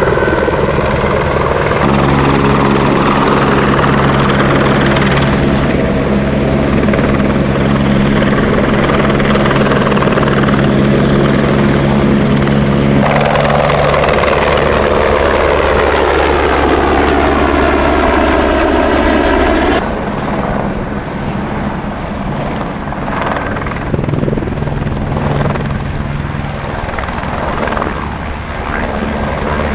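Single-engine Aérospatiale AS350 Écureuil helicopter in flight: the main rotor beats steadily under a high, thin turbine whine. The tone sweeps as it passes, and about two-thirds through the sound changes abruptly and grows quieter.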